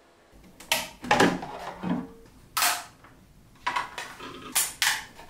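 A series of sharp plastic clicks and snaps, several in a row, from 3D-printed body parts being handled and pressed together.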